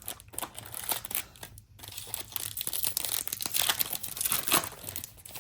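Crinkling and tearing of a trading-card pack wrapper being ripped open, in quick crackly bursts with a brief pause about a second and a half in.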